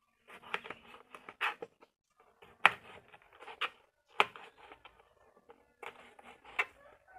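Kitchen knife cutting tomatoes on a plastic cutting board: irregular sharp taps as the blade hits the board, with softer slicing sounds between them.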